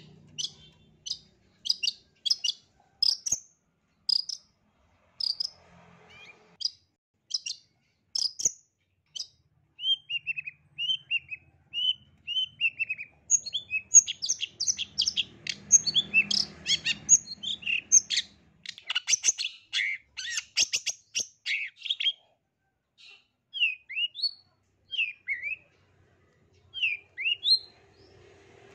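Long-tailed shrike singing. It opens with a string of short sharp chirps, about two a second, then gives a few falling slurred notes. Near the middle it breaks into a fast, dense chattering song, then ends with scattered downslurred calls.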